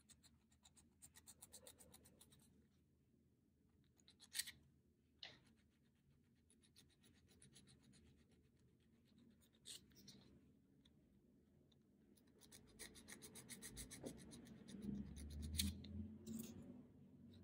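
Faint, quick strokes of a nail file rasping along the edge of sculpted acrylic nails to refine the smile line, in two runs at the start and again near the end, with a few single clicks in between.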